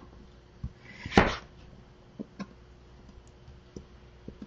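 Chef's knife cutting raw butternut squash on a plastic cutting board: a few light knocks of the blade on the board, with one louder chop about a second in.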